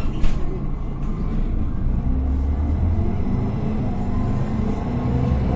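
Diesel engine of a Higer KLQ6129GQ2 city bus heard from inside the cabin, pulling away and accelerating, its deep rumble growing stronger about two seconds in. A sharp knock sounds just after the start.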